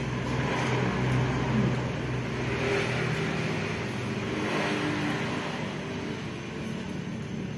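A motor engine running with a steady low hum, swelling around the middle and easing off toward the end.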